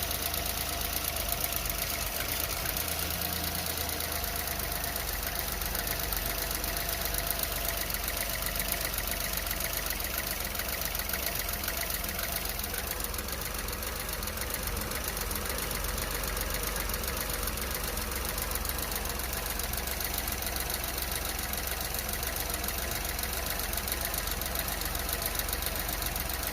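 Renault Clio 1.0 TCe three-cylinder turbo petrol engine idling steadily just after a cold start. The owner is documenting this as a rough idle with unstable idle speed and vibration.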